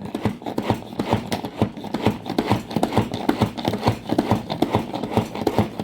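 Onion and garlic cloves being minced in a food chopper: a fast, irregular run of knocks and clatters, several a second.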